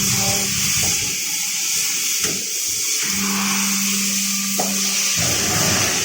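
Hydraulic tapping and drilling machine running with a steady hiss; a low hum stops about a second in and comes back from about three to five seconds in, with a few short knocks.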